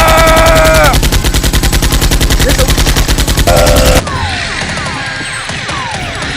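Rapid automatic machine-gun fire, a dubbed sound effect, in one long fast burst that cuts off suddenly about four seconds in. A quieter stretch with several falling whistling tones follows.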